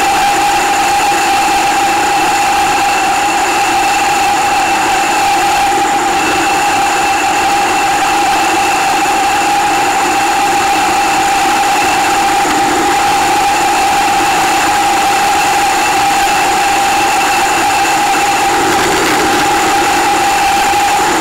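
Kawasaki Z800's inline-four engine running at a steady cruising speed, a constant drone with a steady higher whine above it, under an even rush of wind noise. The motorcycle is new and being run in.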